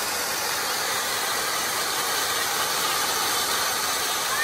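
Several ground fountain fireworks spraying sparks with a steady hiss.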